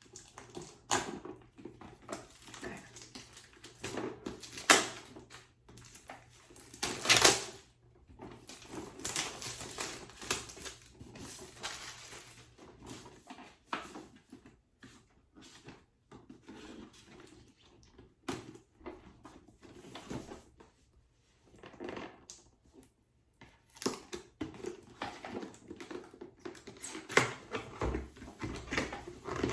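A product box being unpacked by hand: irregular rustling and crinkling of packaging with occasional sharp knocks, the loudest about five and seven seconds in.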